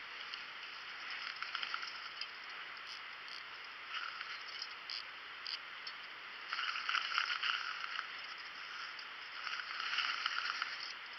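Fishing reel clicking in several spells of rapid ratcheting as a hooked trout is played on a bent rod, the longest spell about two-thirds of the way through, over a steady rush of creek water.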